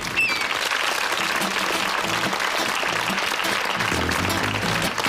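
Audience applauding, with plucked double bass notes starting under the clapping as the band begins to play.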